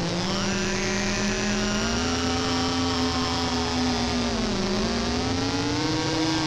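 Homemade square-wave synthesizers droning: several held electronic tones over a steady noise hiss, with pitches gliding slowly. A low tone rises about half a second in, sags a little past the middle and climbs again near the end, while higher tones sweep down in the first second.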